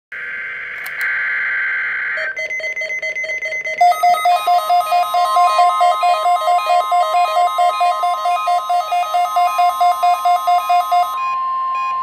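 Several NOAA weather radios sounding a Required Weekly Test. The test opens with a couple of seconds of buzzy data-burst signal. The receivers then start their alert beeping: first one rapid beep, then denser pulsing beeps at two pitches over a steady high tone. About 11 seconds in the beeping stops and the steady tone carries on alone.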